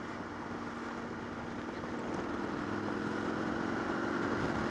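Motorcycle engine running steadily while riding along, over a steady rush of wind and road noise. It gets a little louder from about two seconds in.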